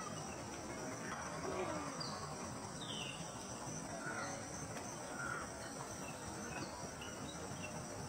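Steady high-pitched insect chirring from the wetland, with a few short bird chirps and calls scattered through it.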